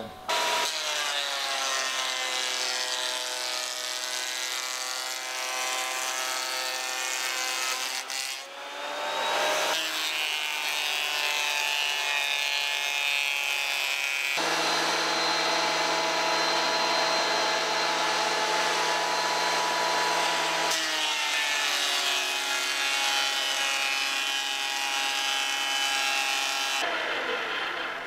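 Benchtop thickness planer running and planing a board down to thickness, a steady loud motor whine whose pitch and level change several times as the cut loads and unloads it.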